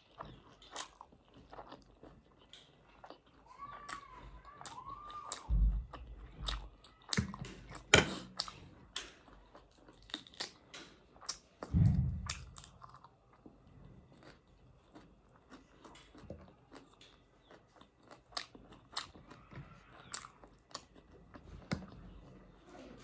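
A person chewing a mouthful of spicy instant noodles and pork close to the microphone, with wet mouth clicks and smacks throughout. A short hummed sound comes about four seconds in, and a few heavy low thumps land around six, eight and twelve seconds in.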